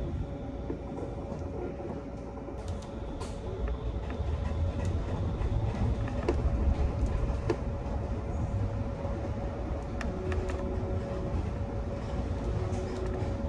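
Trolleybus ride noise heard from inside while it drives: a low rumble of tyres on the road, a steady hum held throughout, and scattered light clicks and rattles.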